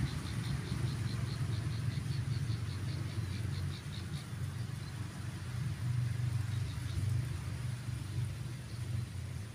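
A steady low motor hum, with a rapid run of high chirps, about four a second, during the first four seconds.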